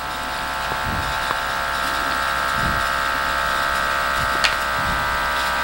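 Electric vacuum pump of an automatic vacuum food-storage box running, a steady whirring hum that grows slightly louder as it draws the air out of the sealed chamber.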